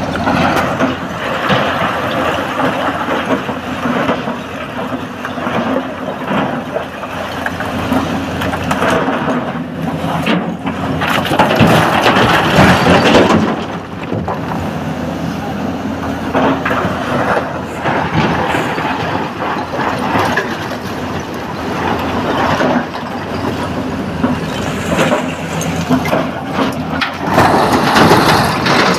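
SANY SY225 hydraulic excavator working under load, its diesel engine running steadily while the bucket digs into and lifts blasted rock. Louder surges of scraping, tumbling rock come about ten to thirteen seconds in and again near the end.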